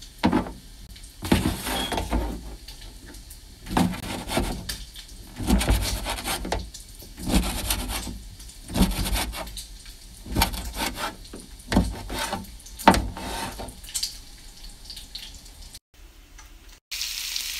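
Knife chopping cooked sausage on a plastic cutting board, in short clusters of strokes every second or two. The chopping stops shortly before the end, and a brief steady hiss follows.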